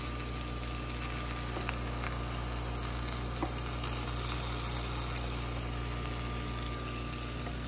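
Steak sizzling steadily on a hot indoor electric grill plate, over a steady low hum, with a few faint clicks.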